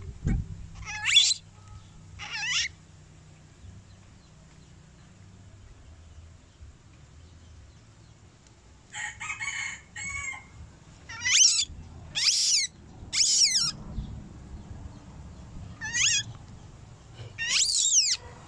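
Baby monkey crying with short, high-pitched squeals: two early on, then a run of about seven in the second half. They are hunger cries as it reaches for the milk syringe.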